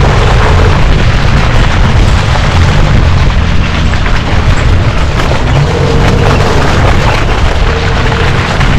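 A 4WD driving along a dirt track, heard through heavy wind buffeting on a camera mounted outside the vehicle: a loud, steady low rumble with engine and tyre noise underneath.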